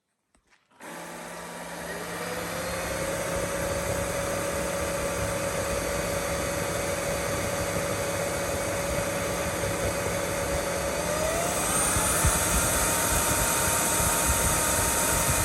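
Joyami cordless wet-dry floor vacuum running its self-cleaning cycle on the charging base: the suction motor and brush roller start about a second in and run steadily, with a whine that rises in pitch near the end.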